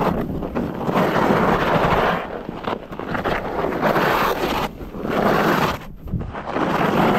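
Skis scraping and carving over hard-packed snow on a fast descent, mixed with wind buffeting the microphone. The noise swells and drops every second or two, turn by turn.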